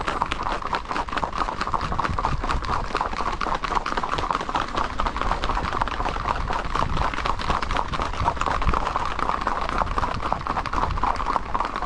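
Hooves of a group of ridden horses clattering on asphalt at a brisk gait: dense, rapid, overlapping hoofbeats with no let-up.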